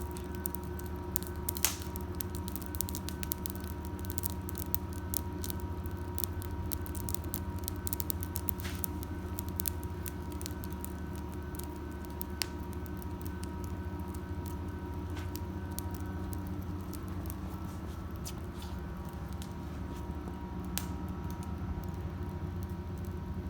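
Wood fire crackling in a small prototype solo fire-pit stand, with sharp pops scattered throughout, more frequent in the first half, over a steady low hum.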